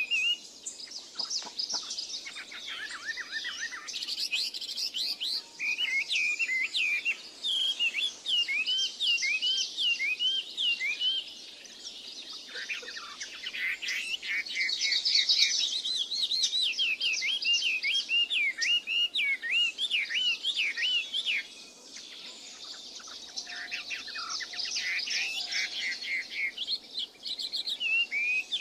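Small birds chirping and twittering in chorus: many short, quick, up-and-down chirps overlapping one another, with a brief lull about three-quarters of the way through.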